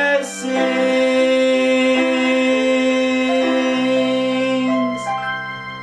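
Instrumental backing music closing a song: long held chords that change a few times, with a bright shimmer just after the start and another about five seconds in, then fading out near the end.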